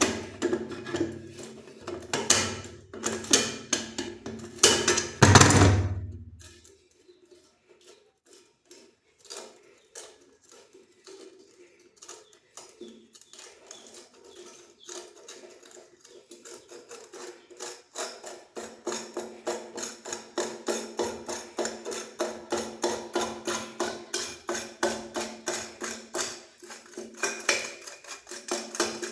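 Background music with a steady beat. Over the first few seconds there are loud knocks and clatter from the basin waste-coupling parts and tools being handled.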